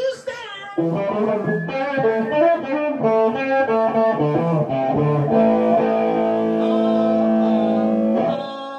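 Guitar playing a quick run of notes, then holding one chord steady for about three seconds before it stops abruptly near the end.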